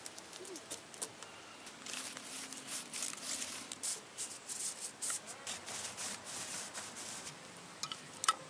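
Black plastic strips rustling and crinkling against a bamboo trellis frame, an irregular dense crackle of rubs, with a few light clicks near the end.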